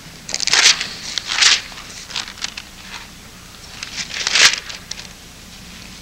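Thin Bible pages being turned and rustled close to a microphone, in three main bursts of rustling with small crackles between, the loudest about four seconds in.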